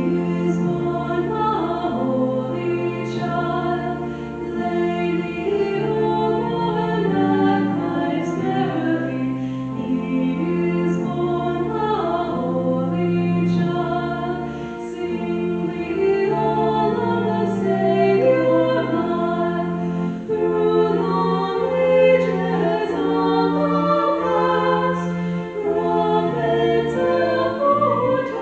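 Choir singing a hymn with steady keyboard accompaniment holding sustained chords.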